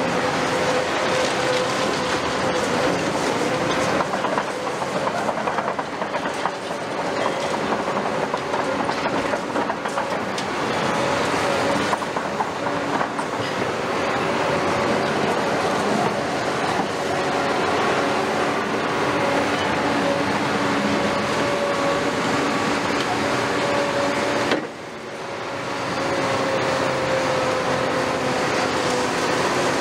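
Caterpillar 390F tracked excavator travelling over rubble: its Cat C18 diesel engine runs steadily while the steel tracks clank and squeal. The sound drops suddenly for a moment about 25 seconds in, then returns.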